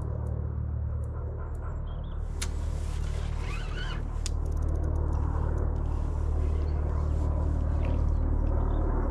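A steady low rumble, with rustling and scattered clicks, and a quick run of fine clicks about four seconds in.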